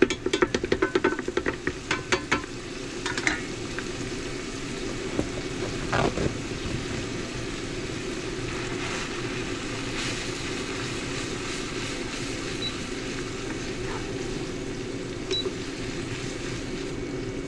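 A utensil clicking rapidly against a pan for the first few seconds while food is stirred, then food sizzling steadily in the pan.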